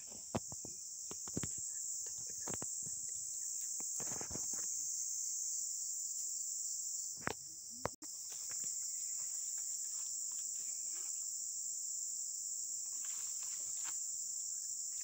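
A steady, high-pitched chorus of insects buzzing, with a brief break about halfway through. A few light clicks and knocks sound over it in the first half.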